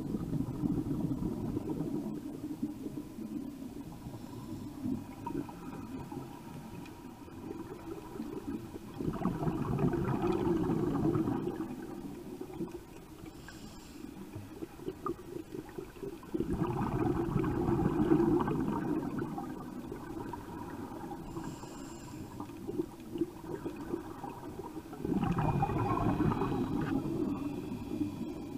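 A scuba diver breathing through a regulator underwater: four long gurgling rumbles of exhaled bubbles, spaced about eight seconds apart, with faint hissing inhalations between them.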